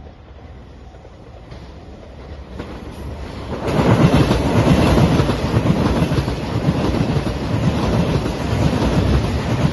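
A JR Shikoku 2700-series diesel limited-express train passes close by: its sound builds over the first few seconds, then becomes loud about three and a half seconds in as the cars go by, with a rapid clickety-clack of wheels over the rail joints.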